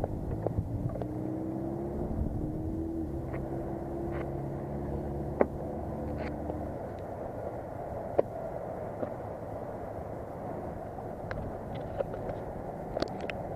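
2009 Yamaha R6 inline-four turned over by its starter motor, a steady whirring that rises a little in pitch and stops after about seven seconds without the engine firing. A few sharp clicks follow.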